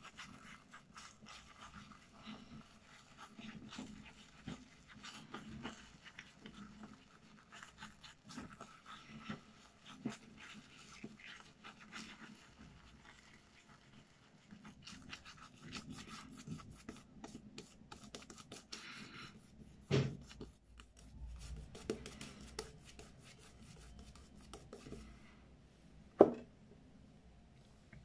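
Semogue silvertip badger shaving brush swirling lather over the face: a quick, soft run of brushing and scratching strokes of the bristles. Two brief knocks break in, the louder one about twenty-six seconds in.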